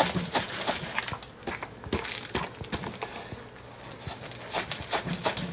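Coarse salt crunching and grating in irregular clicks, several a second, as a metal rod rams it down into the body cavity of a whole striped bass.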